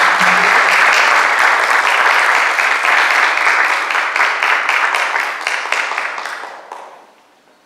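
Applause, a dense patter of clapping that dies away about seven seconds in.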